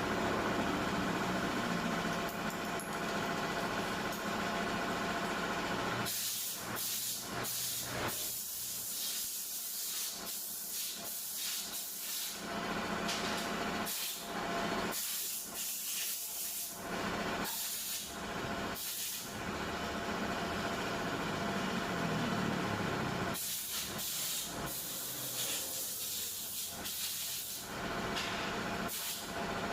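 Compressed-air blow gun hissing in repeated bursts, some short and some lasting a second or more, starting about six seconds in. A steady hum comes first.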